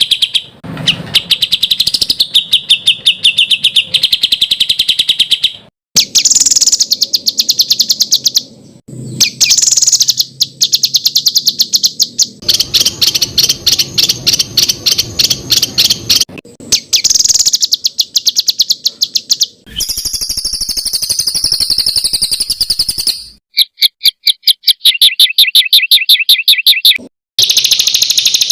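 Loud songbird song used as 'masteran' training material: fast trains of sharp repeated notes ('tembakan kasar', rough rapid-fire phrases), each lasting a few seconds and cut off suddenly before the next. Partway through comes a higher trill of a different pattern.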